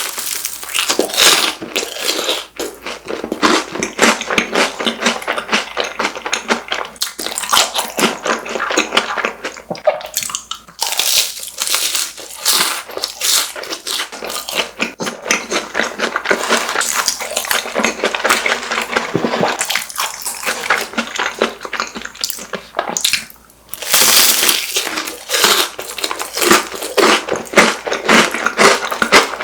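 Close-miked chewing and crunching of crispy deep-fried snacks, with many irregular crackles and a short pause a little after the middle.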